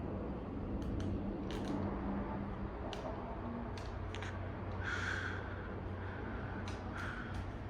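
Minka Aire Concept II ceiling fan running on high with a steady low hum and air noise, with scattered light clicks throughout.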